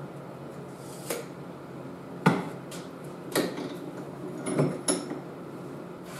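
Metal parts knocking and clinking as they are handled at a bench vise: five or six short, sharp knocks spread over a few seconds, the loudest about two seconds in, over a steady background hum.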